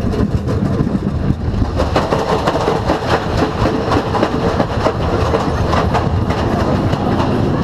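Anaconda wooden roller coaster train rattling and clattering along its track, heard from a seat on board: a continuous rumble packed with rapid wheel and car clicks. The ride vibrates heavily.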